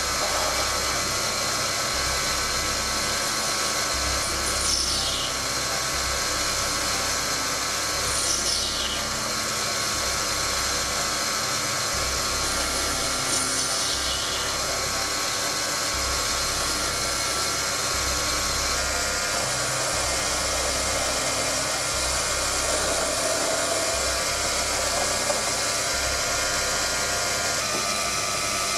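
Proxxon PD 250/e mini lathe running and turning a silver steel shaft with a carbide insert tool, a steady machine whine with cutting noise. Three brief high whistles falling in pitch sound during the first half.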